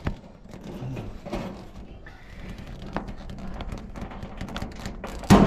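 Clicks and knocks of dryer sheet-metal parts being pried and worked loose, ending in one loud metallic bang about five seconds in.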